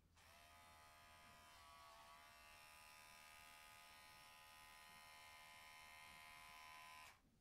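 Electric pet hair clipper buzzing steadily, switched on and running for about seven seconds, then switched off. Its pitch dips briefly about two seconds in.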